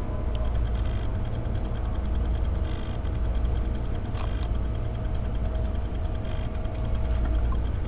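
Magnetic spinning toy running steadily, a faint, fast, even ticking over a low steady hum and a thin steady tone.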